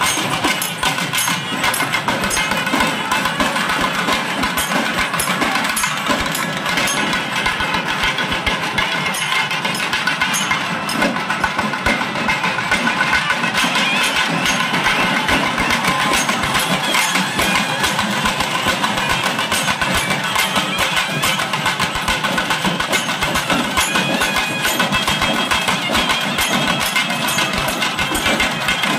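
Live festival band music: barrel drums beaten fast and steadily with sticks, with a wind instrument playing a held, wavering melody over them.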